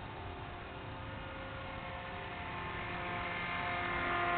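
Small electric motor and propeller of a lightweight foam-board RC plane, a steady pitched hum that grows louder near the end as the plane passes close overhead.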